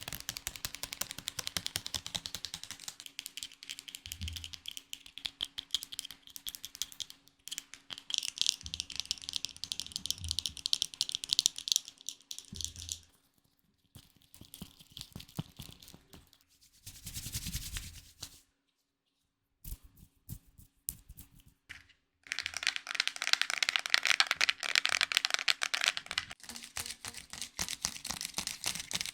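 ASMR trigger sounds close to the microphone: a run of rapid tapping, clicking and rattling textures that change every few seconds, with a short silent gap about two-thirds of the way through.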